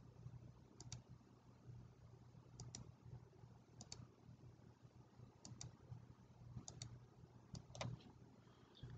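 Faint computer mouse-button clicks, each a quick press-and-release double tick, coming every second or two over near-silent room tone.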